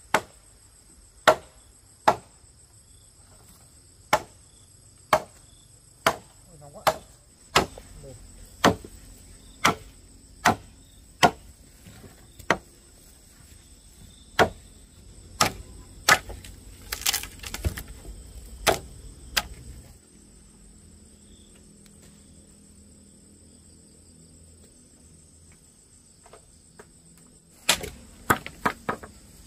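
Blows of a hand tool striking wood, about one a second, stopping about twenty seconds in and followed by a quick flurry of blows near the end. Crickets trill steadily in the background.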